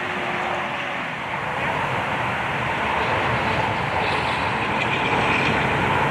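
Large vehicle engine running steadily with a rattling clatter, growing a little louder about three seconds in.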